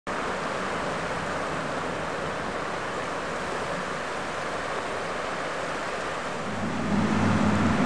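Shallow river rushing over stones, a steady hiss of running water. Near the end a low steady hum comes in and the sound grows louder.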